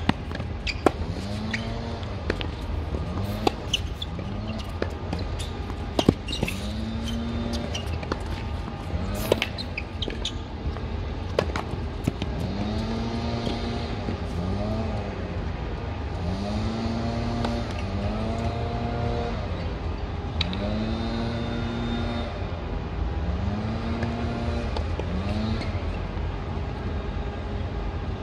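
Tennis ball struck back and forth in a rally, sharp racket hits about every second and a half, stopping after about eleven seconds. Underneath runs a steady low rumble and a repeated rising-and-falling engine-like drone.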